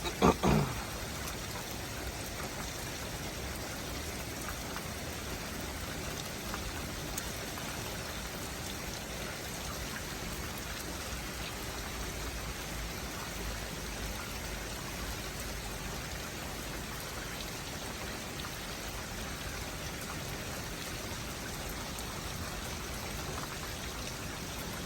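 Steady rain falling, an even hiss with no let-up. A couple of short knocks right at the start are the loudest sounds.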